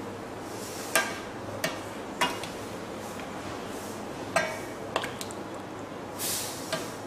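A ladle clinking against a stainless steel saucepan while soup is scooped out, several sharp clinks with a short metallic ring, and a brief splash of soup poured into a bowl near the end.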